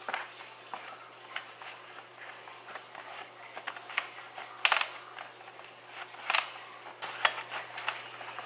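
Hands kneading a ball of dough on a floured metal cookie sheet: soft pressing and rubbing, with about half a dozen irregular sharp knocks from the sheet, the loudest a little past halfway.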